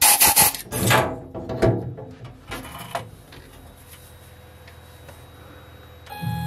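Metal lathe cutting a steel housing: harsh scraping from the tool in the cut, loudest in the first second and dying away in a few weaker bursts. A faint steady hum follows, and a steady pitched machine whine starts near the end.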